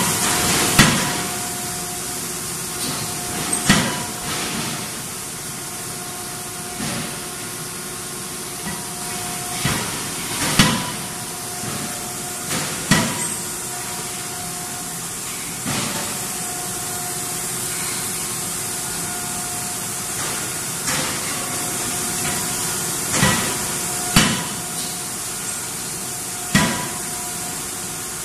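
CNC die forging hammer striking a glowing-hot steel auto part, about a dozen sharp blows at uneven intervals, some in quick pairs. A steady machinery hum and hiss runs underneath.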